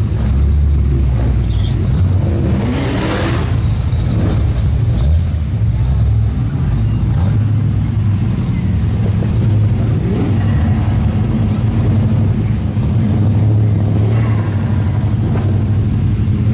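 High-horsepower cars' engines running loudly as they drive out, one revving up with a rising pitch about three seconds in.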